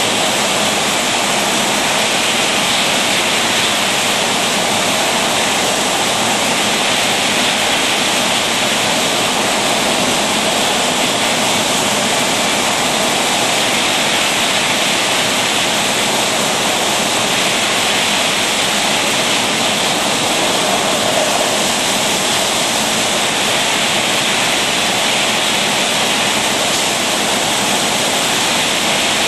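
Steady, even rushing noise of a rotary bottle filler running, with liquid flowing into plastic bottles. There are no distinct clinks or knocks.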